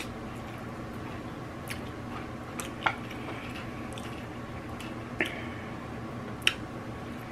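A person chewing and eating saucy barbecue ribs close to the microphone, with a handful of sharp mouth or finger smacks, the loudest about three, five and six and a half seconds in, over a steady hum.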